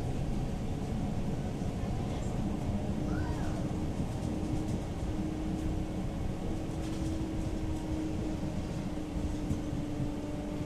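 Inside a Tatra-Yug K1-T306 tram under way: steady low rumble of the wheels running on the rails, with a steady hum from the traction drive that becomes clear a few seconds in.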